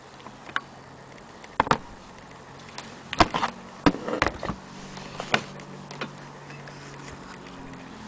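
Scattered, irregular mechanical clicks and knocks from an antique Willcox & Gibbs sewing machine being handled, with a cluster of louder knocks in the middle. A faint steady low hum comes in about three seconds in.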